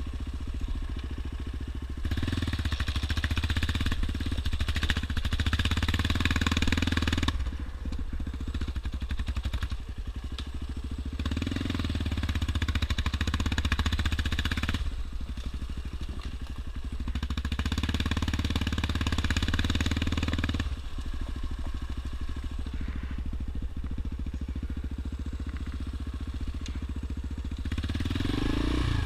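Yamaha Raptor 350 quad's single-cylinder four-stroke engine running while ridden, the throttle opening and easing off in several surges of a few seconds each, with a rising rev near the end.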